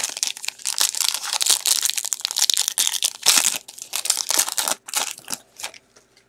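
Foil wrapper of a 2021 Bowman baseball card pack being torn open and crinkled by hand, a dense run of crackles that stops shortly before the end.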